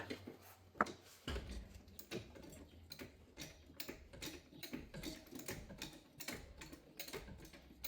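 Faint, irregular light clicks and taps of something being handled, a few each second, the sharpest about a second in.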